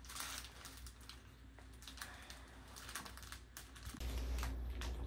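Quick, irregular light clicks of computer-keyboard typing. About four seconds in, a steady low hum of room sound comes in under a few more small clicks.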